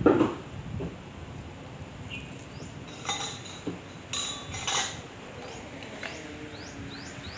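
A single loud dog bark right at the start, then several sharp metallic clinks a few seconds in, with small birds chirping faintly.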